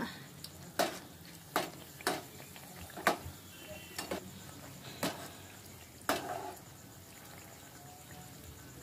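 A perforated metal frying spoon clatters against the frying pan in several sharp knocks about a second apart, as it tries to turn a pitha that is deep-frying in hot oil. A faint frying sizzle runs underneath, and the knocks stop for the last couple of seconds.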